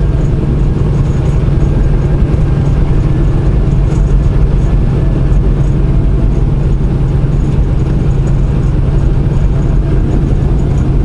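Semi truck's engine running at highway speed with road noise, a steady low drone.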